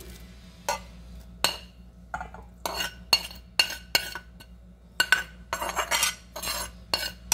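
A frying pan being scraped out with a spoon over a stainless steel mixing bowl, with the pan rim knocking against the bowl: a quick string of scrapes and clinks, several ringing briefly like metal on metal.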